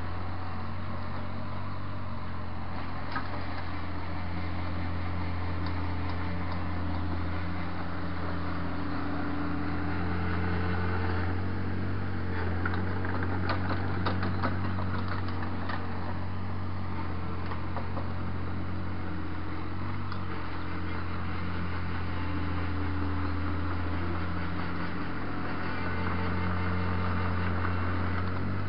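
Takeuchi mini excavator's diesel engine running steadily under load while the machine pushes and grades backfill soil with its dozer blade, its pitch shifting a little as the load changes. A spell of rattling and clicking comes about halfway through.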